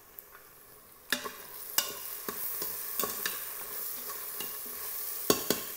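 Sliced onions and ginger-garlic paste frying in oil in an Instant Pot's stainless steel inner pot, sizzling while a spoon stirs them. The spoon scrapes and taps against the pot from about a second in, with two sharper knocks near the end.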